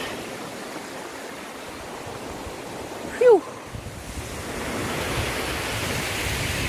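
Sea surf washing on a rocky shore, with wind buffeting the microphone. About three seconds in, a brief, loud pitched sound glides downward. After it the wind and surf noise grows louder.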